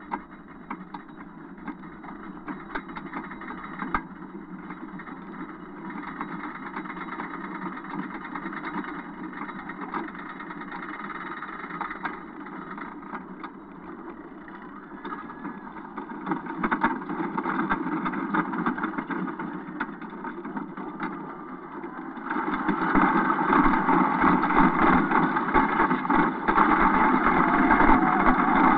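Wooden roller coaster train running along its track: a steady rattling clatter with scattered clicks, growing louder and jumping up sharply about three-quarters of the way through.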